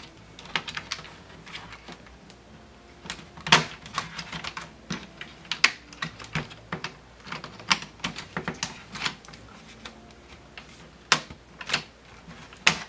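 Irregular sharp plastic clicks and snaps as a laptop's plastic back cover is pried loose from its snap-in clips, with a few louder snaps spread through.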